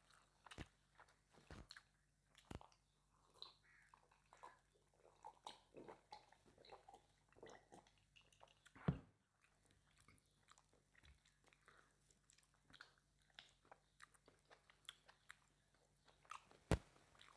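A person chewing and biting spicy mutton curry with rice, a steady run of small irregular mouth clicks and smacks, with two sharper clicks, one about nine seconds in and one near the end.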